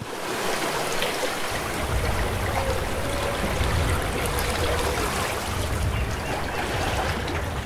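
Sea water rushing and splashing in a steady wash, with a low rumble joining about two seconds in.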